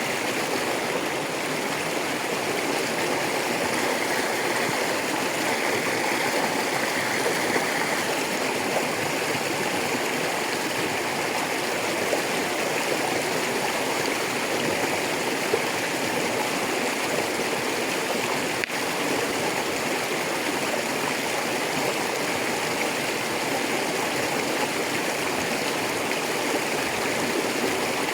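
Rocky river flowing steadily over stones, a continuous rushing of water.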